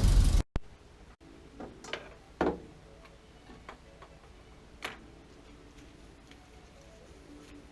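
A loud sound cut off about half a second in, then scattered single light clicks and knocks, irregularly spaced, over a faint steady hum.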